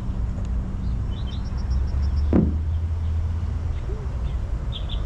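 Birds chirping in quick runs over a steady low rumble, with a single thump a little over two seconds in.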